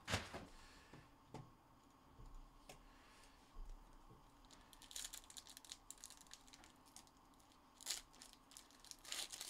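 Faint crinkling and tearing of a foil trading-card pack being opened by hand, with a few sharp clicks and taps, the loudest right at the start.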